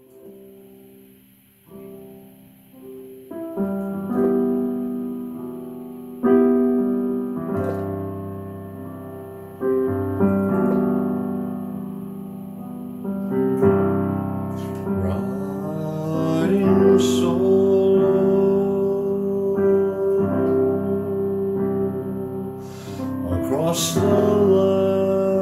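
Piano music playing sustained chords, with a new chord struck every few seconds, fading in from soft and growing louder over the first few seconds.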